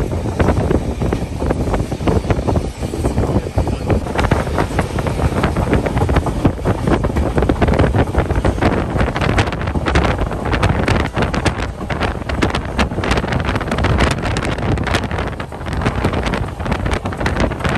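Wind rushing over the microphone from a moving train, a steady loud rush with many short crackles, over the low rumble of the running train.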